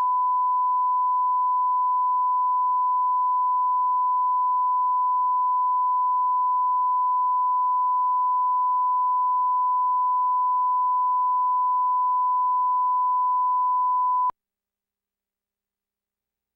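Steady 1 kHz reference tone, the line-up tone laid with colour bars at the head of a video master: one pure, unchanging pitch at a constant level that cuts off suddenly near the end.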